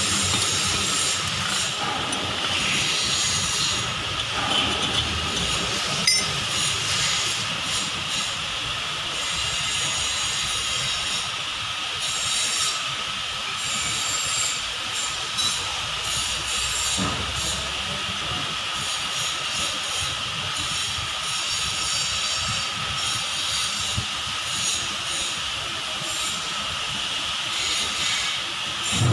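A rag scrubbing and wiping the inside of a metal front axle housing, heard as an uneven scratchy rubbing over a constant hiss, with one sharp knock about six seconds in.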